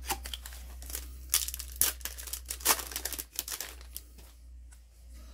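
Foil Yu-Gi-Oh booster pack wrapper crinkling as it is pulled from the box and torn open, with several sharp crackles and rips.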